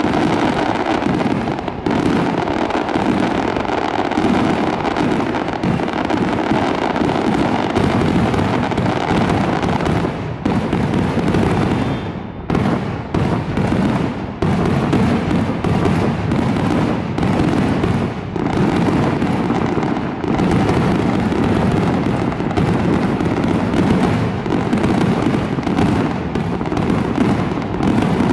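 Aerial fireworks shells bursting in a rapid, continuous barrage, with loud bangs overlapping one another without a pause.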